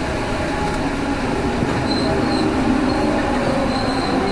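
Interior running noise of a rubber-tyred MP89 Paris Métro train moving between stations: a steady rumble with a faint motor hum. From about halfway, a thin high whistle comes and goes. This may be the strange noise the uploader reports on the motor car.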